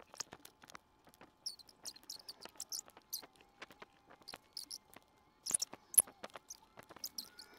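Colored pencil scratching on paper in quick, fast-forwarded strokes: a rapid, irregular run of short, high, scratchy ticks, with one sharper click about six seconds in.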